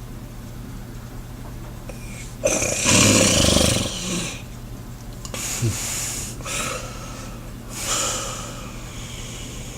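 Snoring: one loud, noisy snore lasting over a second about two and a half seconds in, then several shorter, fainter breaths, over a steady low hum.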